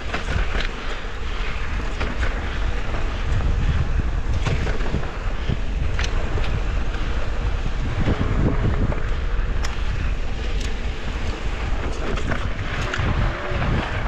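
Wind rushing over the microphone of a mountain bike riding a dirt trail, with tyre noise and scattered sharp clicks and rattles from the bike.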